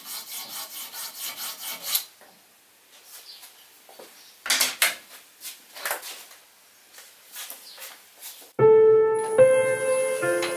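A diamond file stroked back and forth over the cutting tip of a multi-tip hollowing tool, about three to four strokes a second, stopping about two seconds in. A few brief scrapes follow as the tool meets the spinning yew, then piano music comes in about two-thirds of the way through.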